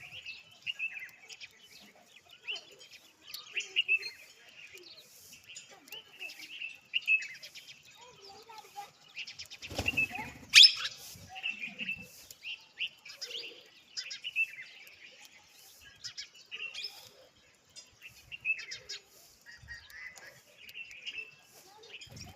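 Small birds chirping over and over in short, high chirps. A louder noisy burst with one sharp click comes about ten seconds in.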